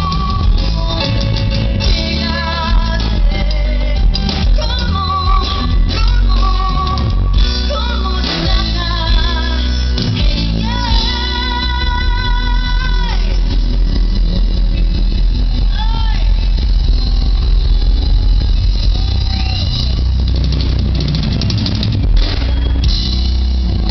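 Live Tejano band music heard from the crowd: a woman singing over guitar, bass and drums, holding a long wavering note about eleven seconds in, after which the band plays on with little singing.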